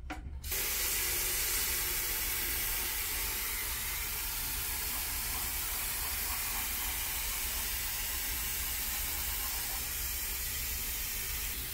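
Steady hissing sizzle of food cooking in a hot pan, starting suddenly about half a second in.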